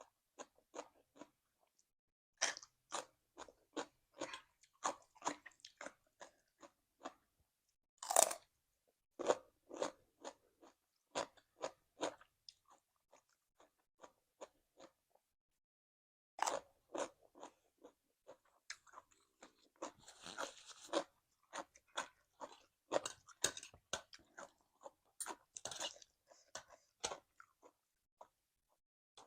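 Crunching and chewing of crunchy cucumber salad with raw vegetables and fried beef, in runs of quick crunches with a quieter pause in the middle and one louder crunch about eight seconds in.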